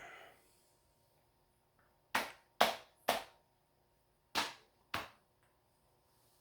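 Five sharp slaps of a hand on a belly bloated full of soda: three in quick succession a little after two seconds in, then two more about a second later.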